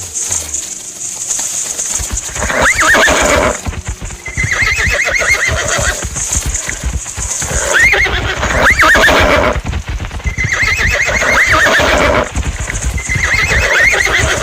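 Horses galloping in a stampede, with fast drumming hoofbeats that start about two seconds in. Repeated whinnies come over the hoofbeats, about five of them, each a second or so long.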